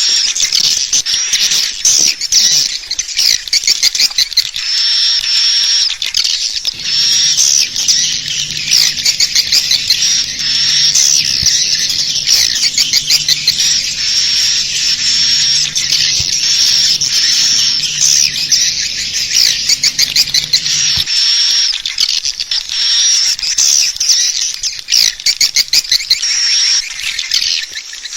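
Swiftlet calling track: a dense chorus of rapid, high chirping swiftlet calls, the lure sound played to draw swiftlets into a nesting house. A low hum sits under the calls from about a quarter of the way in until about three quarters through.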